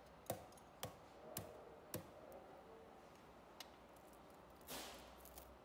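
Faint sharp clicks, four about half a second apart and one more later, and a short scraping rustle near the end, from a hand tool and old copper windings being worked out of an electric motor's stator.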